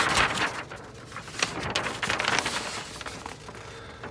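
A printed paper instruction sheet being handled and turned to another page: rustling and crinkling, loudest at the start and again around the middle.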